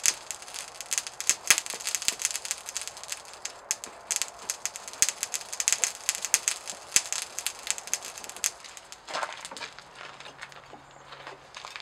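Dense, irregular crackling and clicking with sharper knocks among it, from hammer blows and scale on the hot leaf-spring steel axe head on the anvil. It thins out about eight seconds in.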